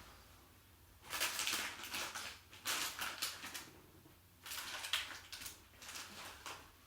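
Crinkly rustling of a snack bag of Jalapeño Cheddar Cheetos as hands reach in for pieces, in three bursts.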